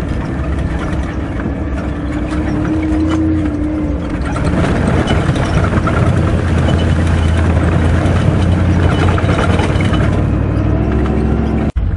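Engine of an old Toyota Land Cruiser running steadily under way on a dirt track, heard from on board with tyre and road noise; it gets louder after about four seconds.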